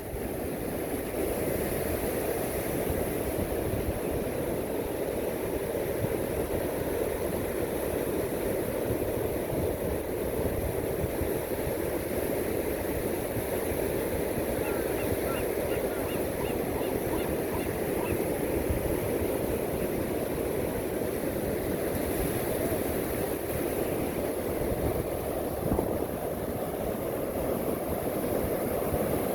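Steady ocean surf with wind rumbling on the microphone. A brief run of faint, quick bird calls comes around the middle.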